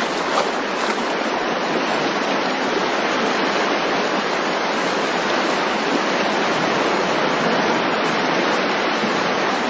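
Rushing water of a rocky stream, a steady even hiss.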